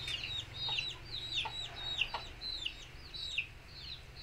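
Chicks peeping: a steady run of short, high, falling cheeps, several a second, with a few faint clicks among them.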